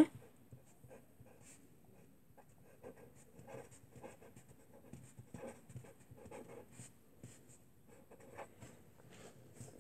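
Pen scratching on paper in faint, irregular strokes as someone writes by hand.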